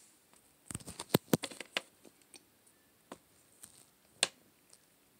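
Small plastic Littlest Pet Shop figurines handled and set down on a tabletop: a quick run of light clicks and knocks about a second in, then one more sharp click near the end.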